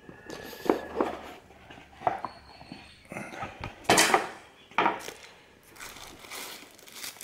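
Cardboard tablet box being opened by hand: a series of knocks and scrapes as the lid comes off, then the thin plastic sleeve around the tablet crinkling, with the loudest rustle about four seconds in.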